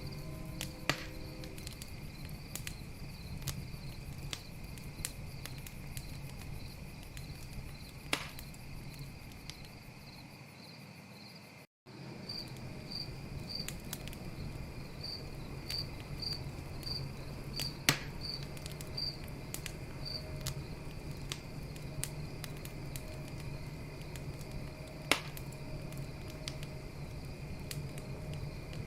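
Campfire crackling with a steady low rumble of flames and four loud, sharp pops, over a continuous chorus of night insects chirping. The sound cuts out completely for an instant near the middle.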